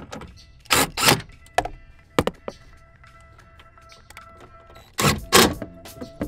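Craftsman cordless impact driver with a socket extension, spun in short bursts to drive bolts into a door speaker bracket: a few quick runs about a second in and two more near the end.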